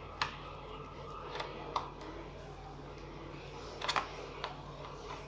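A few light clicks and taps of a screwdriver and the laptop's plastic case being handled while a screw is taken out. The loudest click comes about four seconds in, over a steady low hum.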